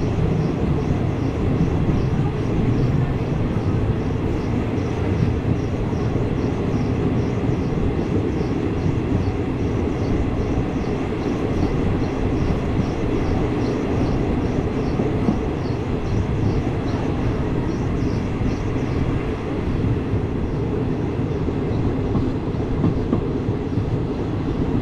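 Steady rumble and rattle of a long container freight train's wagons rolling past close by on the next track, with faint regular ticking about twice a second, heard from beside another train.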